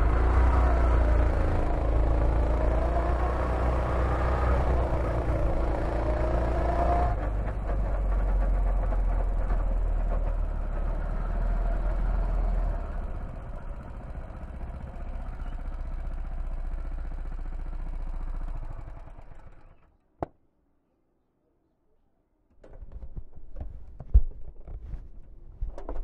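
Go-kart engine running under throttle, its pitch rising and falling through a corner with wind and tyre hiss. It then settles to a lower, steadier note as the kart slows and fades out about twenty seconds in. After a single click and a moment of dead silence come irregular knocks and rattles.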